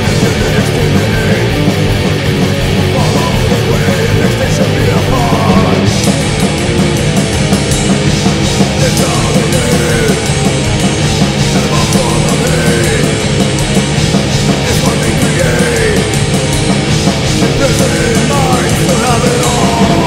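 Loud heavy metal music, dense and steady throughout, with distorted electric guitars.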